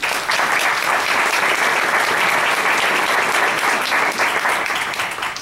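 Audience applause, starting all at once and fading away near the end.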